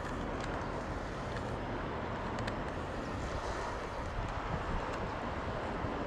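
Steady outdoor street ambience: an even, constant rush of background noise with a few faint short ticks.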